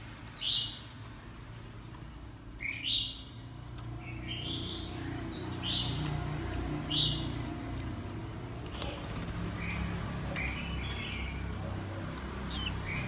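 Oriental magpie-robin calling: a series of short, sharp notes, each sweeping down in pitch, one every second or two, softer and more broken toward the end.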